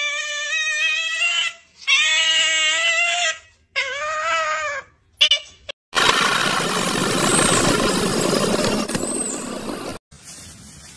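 Four drawn-out, wavering high-pitched animal calls, each about a second long or shorter, with short gaps between them. About six seconds in, a loud steady rushing noise takes over; it fades a little and cuts off suddenly about four seconds later.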